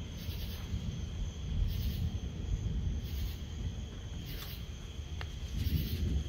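Night insects calling: a steady high cricket trill with a rhythmic chirp about every second and a half. Underneath is a low, swelling rumble of distant thunder.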